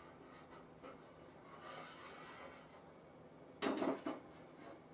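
Workshop handling sounds: a few light taps and a soft scraping, then a loud clunk and clatter of something being set down or knocked about three and a half seconds in.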